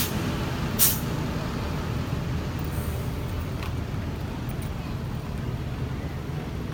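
Steady low rumble of road traffic, with one short, loud hiss about a second in.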